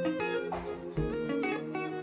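Background music led by guitar, with its notes changing every fraction of a second.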